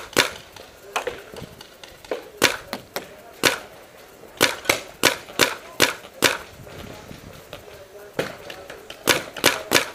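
Paintball markers firing: sharp pops in irregular volleys, some in quick doubles and triples, with short gaps between.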